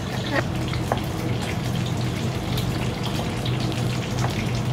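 A large pan of okra stew simmering and bubbling on the hob while a wooden spoon stirs through the thick vegetables, with a low steady hum underneath.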